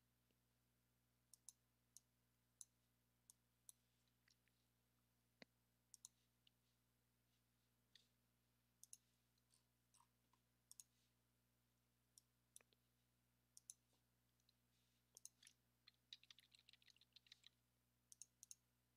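Faint, scattered computer mouse clicks, single and spaced irregularly, with a quick run of ticks near the end.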